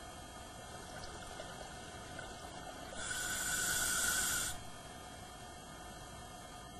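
Scuba diver breathing in through a regulator: a smooth hiss of about a second and a half, starting about three seconds in and cutting off sharply, over a steady underwater background.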